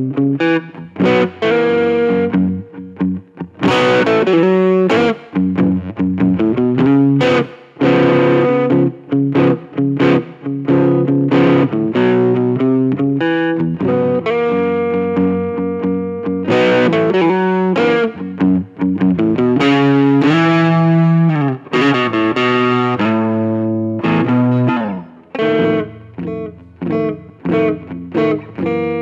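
Fender Stratocaster with Seymour Duncan P-Rail pickups, played through a NUX Mighty Lite BT amp with distortion: strummed chords and runs of single notes, broken by short stops between phrases.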